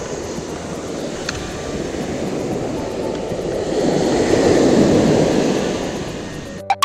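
Surf breaking and washing up a sandy beach: a rushing noise that swells to its loudest about four seconds in and fades away near the end. A sharp click comes just before the end.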